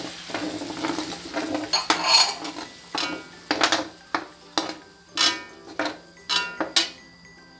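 Metal spatula stirring in a wok, clinking and scraping against the pan in repeated sharp knocks that ring briefly, most of them in the second half. Under it, a sizzle of garlic and onions in oil with Sprite just added dies down over the first few seconds.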